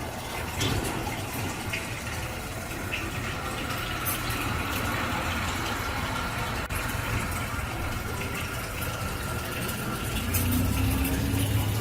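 Steady rushing, water-like noise with a low rumble underneath and a few faint clicks, growing louder near the end.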